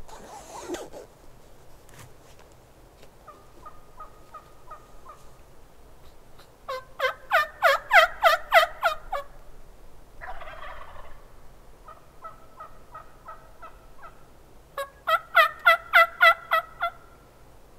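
Wild Merriam's turkeys gobbling close by: two loud gobbles, one about seven seconds in and another about fifteen seconds in, each a rapid run of about ten notes, with fainter gobbling between them.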